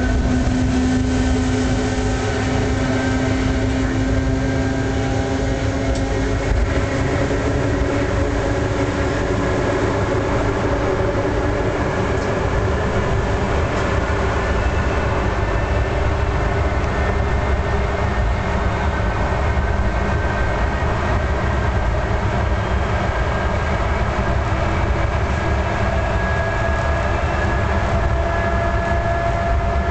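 EF class electric locomotive running at speed, heard from inside its cab: a steady low rumble of wheels on rail with several whining electrical tones. The tones drift slowly upward in the second half.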